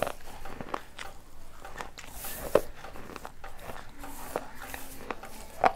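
Baked clay pot pieces being bitten and chewed close to the microphone: a run of small crisp crackles, with two sharper, louder crunches, one about two and a half seconds in and one near the end.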